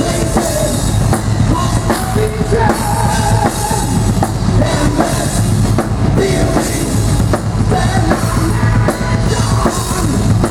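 Heavy metal band playing live: a drum kit with bass drum under a dense, loud, continuous wall of amplified instruments.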